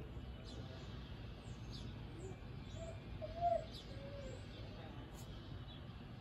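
Birds calling outdoors: short, high, falling chirps repeat throughout, with a few lower arching calls between about three and four and a half seconds in, over a steady low background noise.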